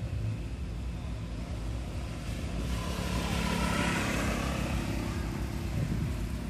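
Steady low motor-vehicle engine rumble, swelling louder for about two seconds in the middle as a vehicle passes.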